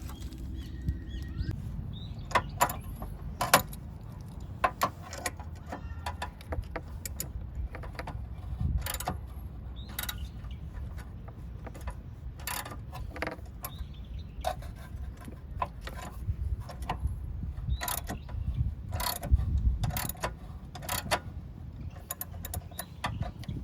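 Hand tools clinking and clicking against metal parts in irregular, separate knocks while the car's AC compressor magnetic clutch is worked on, over a low rumble.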